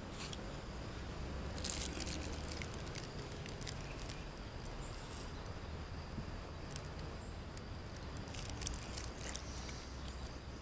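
Quiet outdoor background: a faint steady high insect drone over a low rumble. A few light clicks and rustles from chopsticks and a plastic food container come about two seconds in and again about eight seconds in.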